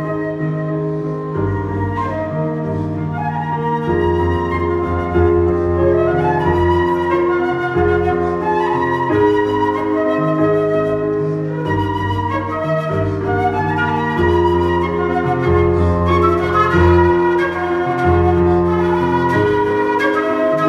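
Live flute and electronic keyboard duo: the flute carries a legato melody over the keyboard's held chords and bass notes, played through a small PA.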